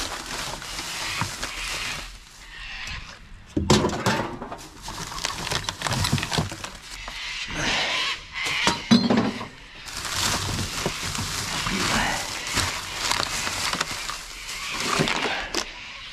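Rummaging through rubbish in a dumpster: plastic bags rustling, with repeated knocks and clinks of bottles and cans being moved.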